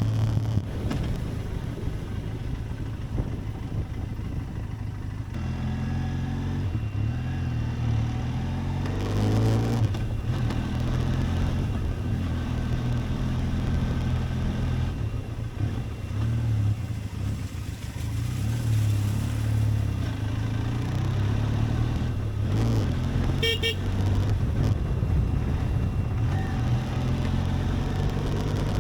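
Benelli TRK 502X's parallel-twin engine running under way as the motorcycle is ridden, its note swelling and easing. A short pulsing beep sounds about two-thirds of the way through.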